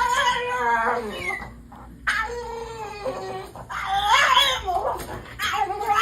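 A dog giving a series of long, wavering whining calls, about four of them, each lasting around a second.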